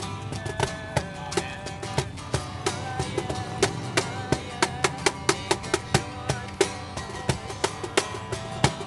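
Acoustic guitar strummed over a hand-played cajón, which keeps a steady beat of sharp slaps a few times a second.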